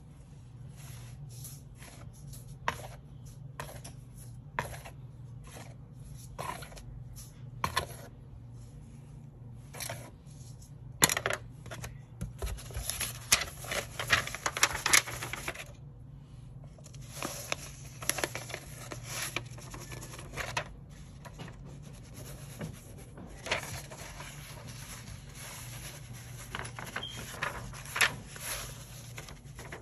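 Plastic PET transfer film being handled, crinkled and tapped while white heat transfer powder is shaken over it: irregular clicks, taps and rustles, busier in stretches, over a low steady hum.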